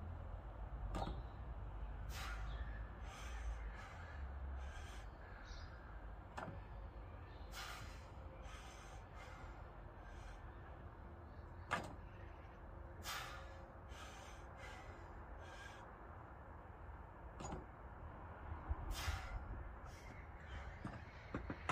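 Crows cawing in a series of short, separate calls over a low rumble.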